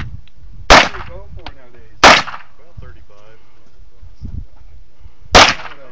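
Three handgun shots fired singly: one about a second in, another about a second later, and the last near the end after a pause of more than three seconds.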